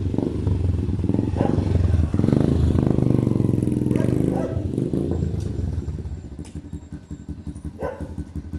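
Yamaha YTX125's single-cylinder four-stroke engine running loud through an aftermarket bullet pipe exhaust, its pitch shifting with the throttle. The sound dies away over the last few seconds.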